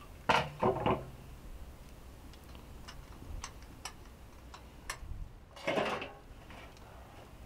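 Kitchen utensils and cookware knocking and clinking. A quick cluster of sharp knocks comes near the start, a few light clicks follow through the middle, and a longer clatter comes about six seconds in.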